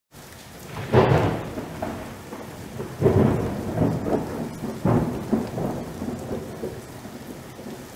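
Thunderstorm sound effect: three booming claps with rolling tails, about a second in, at three seconds and just before five seconds, over a steady hiss of rain that dies away toward the end.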